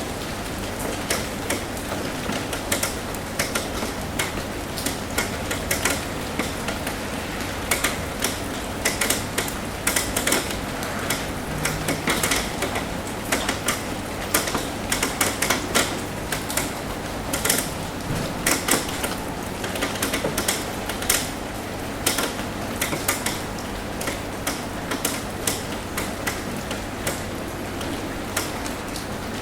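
Raindrops tapping on a roof: irregular, sharp ticks over a steady hiss of rain, with a faint low hum underneath.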